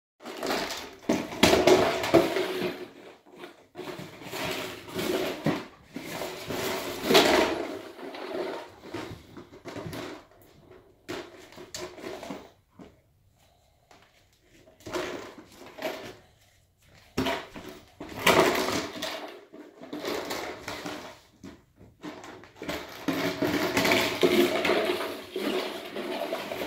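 Clear plastic container being pushed, mouthed and knocked about on a floor by a Border Collie puppy: irregular bouts of noisy plastic clatter and scraping, with a few short quiet pauses, one near the middle.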